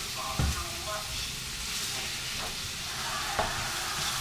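Minced meat frying in a stainless steel pan with a steady sizzle as it is stirred. The utensil knocks against the pan twice, about half a second in and again after about three and a half seconds.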